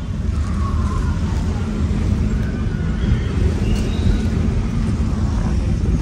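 Low, uneven rumble of a road vehicle on the move.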